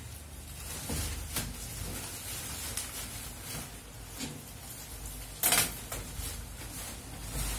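Plastic bubble wrap rustling and crinkling as it is pulled and handled by hand, in a run of short irregular rustles with one louder crinkle about five and a half seconds in.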